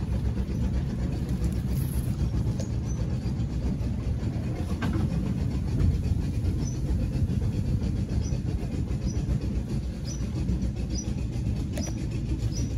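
Small boat's outboard motor running at low speed, a steady low rumble. Short high chirps repeat faintly over it from a couple of seconds in.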